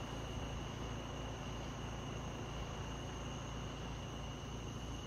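Night insects, crickets, chirring in a steady, unbroken chorus, with a low steady hum underneath.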